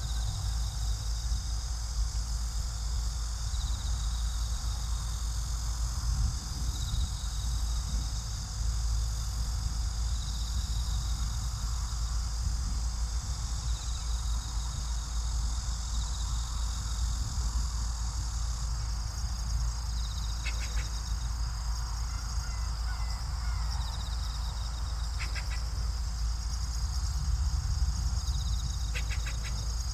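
Waterbirds calling, with a few short rapid chattering calls in the last third, over a steady low rumble.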